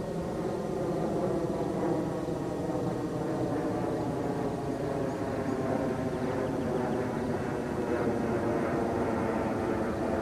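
1976 Cessna 150M's four-cylinder Continental O-200 engine and propeller running at low taxi power as the plane taxis, a steady drone.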